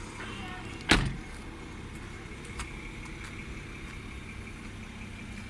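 Car engine idling with a steady low hum and a faint steady high whine, with one sharp knock about a second in.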